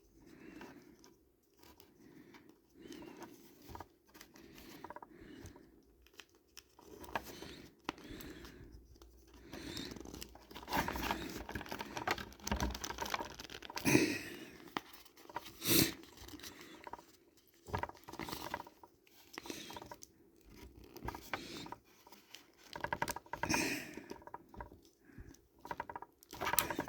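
Hands working a swap head onto a plastic action figure's neck joint: irregular plastic clicks, creaks and handling rustle, busier in the second half, with two sharper clicks a little past halfway.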